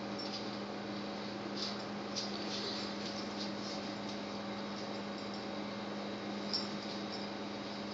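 Steady electrical hum with a constant low tone, and a few faint light taps and scratches of a dog's claws pawing on a tile floor.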